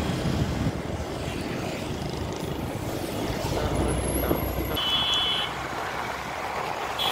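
Road noise and wind from riding a two-wheeler through town traffic, with a low rumble that eases about five seconds in. Two short high-pitched beeps sound, one about five seconds in and one at the end.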